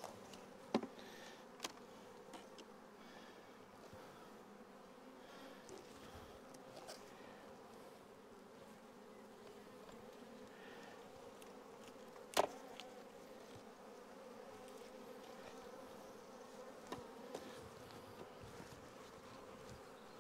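Honeybees from a small colony in an opened hive, humming faintly and steadily. A few sharp knocks break in, the loudest about twelve seconds in.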